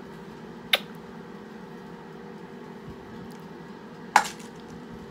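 Two short, sharp clicks, one under a second in and a louder one about four seconds in, over a steady low hum.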